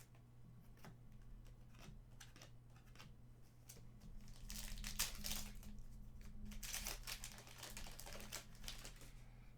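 Hockey card packs being opened and handled: foil wrapper crinkling and light clicks of trading cards being shuffled, busier from about halfway through, over a steady low electrical hum.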